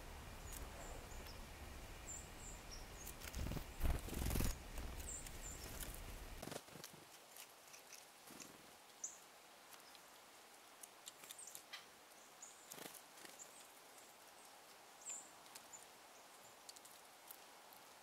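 Faint outdoor ambience in a snowy wood. A low rumble, louder for a moment about four seconds in, stops about six and a half seconds in. After that it is quiet, with scattered small clicks and rustles and brief high chirps from small birds.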